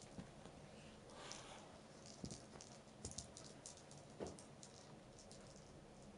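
Faint scattered light clicks and taps, with a brief rustle and a few soft thumps, the loudest about four seconds in, as a cat paws and bats a small toy ball on carpet.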